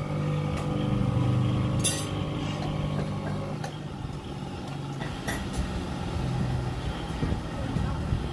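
Steady low machine hum that weakens a few seconds in and comes back later, with a sharp metallic clink about two seconds in and another about five seconds in.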